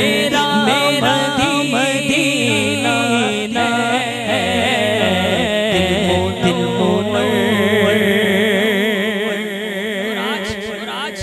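A man sings a naat into a microphone in long, ornamented held notes with wide vibrato, over a steady low drone.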